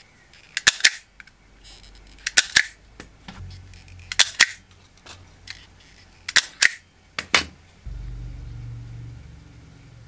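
Knipex automatic wire stripper clamping and stripping cable ends: sharp clicks in close pairs about every two seconds, four times, then a single click. A low hum comes in near the end.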